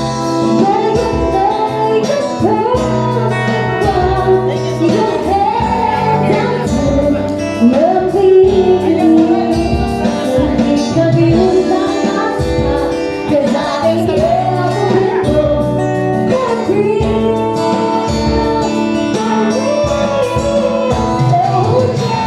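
A band playing a song with a singer over steady accompaniment and a regular beat.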